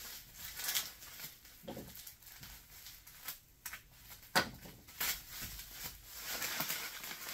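Bubble wrap rustling and crinkling as it is handled and pulled off a helmet, with a few sharp crackles, the loudest about four seconds in, and denser rustling near the end.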